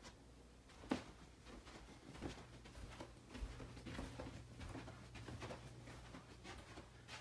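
Faint footsteps on carpet and the rustle of a handheld camera walking through a small room, with one sharper knock about a second in. A low steady hum comes in a little after two seconds.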